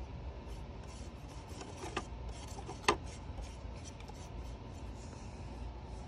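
Soft scattered rubbing and tapping from paintbrushes, small paint pots and a plastic palette being handled, with a sharp click about three seconds in and a smaller one about two seconds in, over a low steady background rumble.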